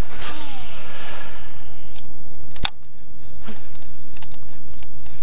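A fishing cast: a swish with a whirring that falls in pitch as line runs off the reel, then a single sharp click about two and a half seconds in, over a steady hiss.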